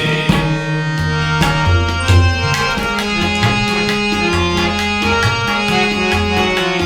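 Tabla and harmonium playing an instrumental passage of Sikh kirtan: a steady run of tabla strokes, with deep bass-drum notes that bend in pitch, under held harmonium chords.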